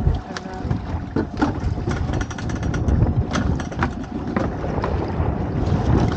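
Wind buffeting the microphone aboard a small open fishing boat, a steady low rumble, with irregular knocks and clicks scattered throughout.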